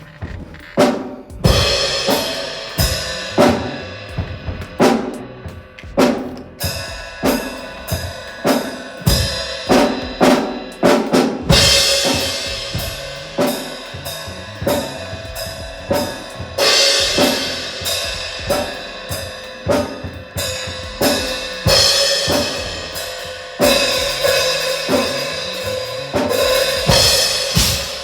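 Music with a drum kit playing a steady beat: snare, bass drum and cymbals over held musical tones.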